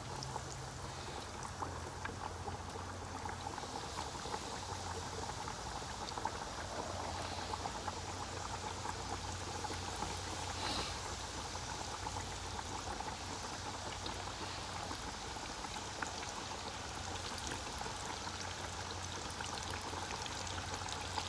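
Breaded catfish fillets frying in hot oil in an electric deep fryer: steady sizzling and bubbling with fine crackles.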